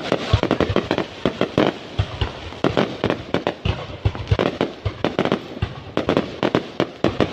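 Fireworks exploding in a dense, irregular barrage of sharp bangs and pops, many coming close together.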